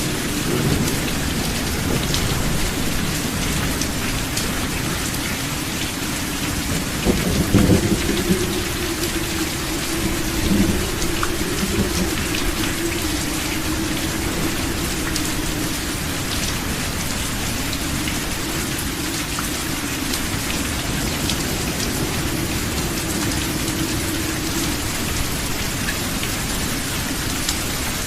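Steady heavy rain pattering, with thunder rumbling low underneath; the rumble swells louder about seven seconds in and briefly again a few seconds later.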